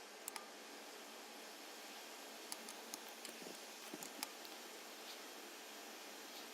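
Faint steady hiss with a handful of soft, short clicks from a computer mouse.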